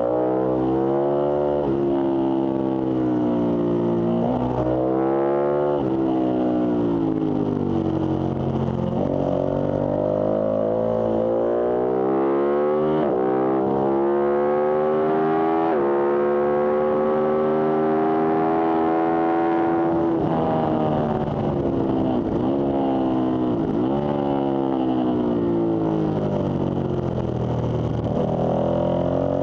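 Ducati superbike's V-twin engine at racing speed, revving up through the gears with a sharp drop in pitch at each upshift. After a long pull it falls away, with quick rev blips on the downshifts, then climbs again near the end.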